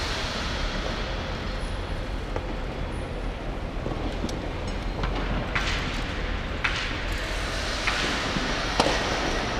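Small petrol engine of a powered rope ascender running steadily, with several sharp metallic clicks in the second half.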